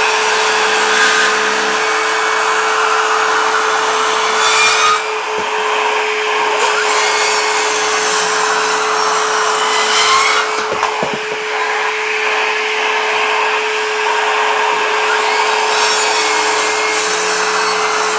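Evolution R165 18 V cordless circular saw cutting timber, with a cordless vacuum connected for dust extraction running steadily underneath. The sound is loud and continuous, with brief dips about five and eleven seconds in.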